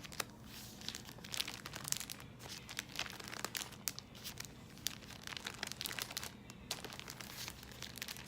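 Paper sewing pattern envelopes rustling and crinkling as they are handled and flipped through, in a run of irregular soft crackles.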